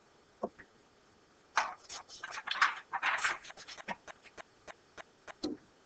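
A quick, irregular run of short scratchy clicks and rustles, densest for about two seconds, then a few scattered single clicks.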